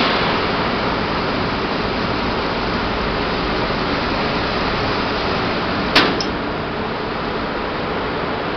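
Fruit pomace drying machinery running: a steady rushing noise with no changes, broken by one sharp knock about six seconds in.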